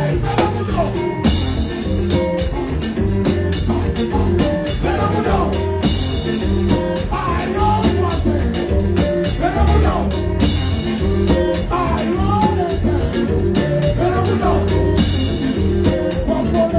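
Live konpa band playing with singing, a full drum kit keeping a steady beat and guitar. Cymbal crashes wash over the band about every four to five seconds.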